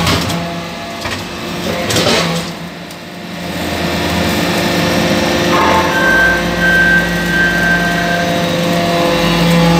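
Vertical hydraulic briquetting press for metal chips running: a steady hum from its motor and hydraulics. There is a short burst of hiss about two seconds in, and a higher steady whine joins for a couple of seconds past the middle.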